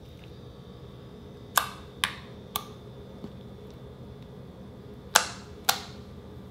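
Glossy white slime giving sharp pops as a hand stretches and folds it. There are three pops between about one and a half and two and a half seconds in, and two more near the end.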